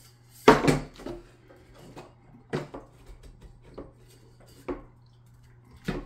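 Thin steel frame pieces of a flat-pack bakers rack clanking and knocking together as they are lined up and fitted. One sharp clank comes about half a second in, followed by a few lighter knocks and ticks.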